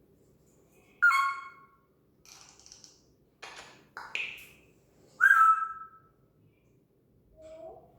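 African grey parrot making a string of separate whistles and calls, the loudest about a second in and about five seconds in, with two sharp clicks between them.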